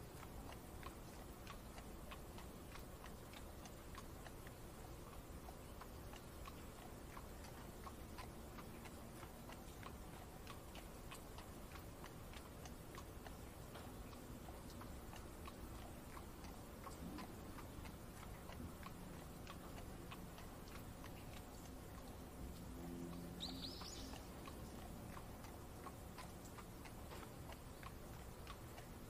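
Horse-drawn carriage ride ambience: a steady run of light ticking and tapping clicks, with a single short bird chirp about three-quarters of the way through.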